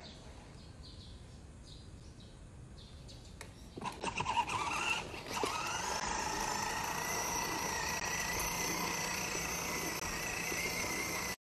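Battery-powered ride-on toy motorcycle's electric motor running: after a quiet stretch with faint bird chirps, its whine rises in pitch about five and a half seconds in and then holds fairly steady as the toy moves along.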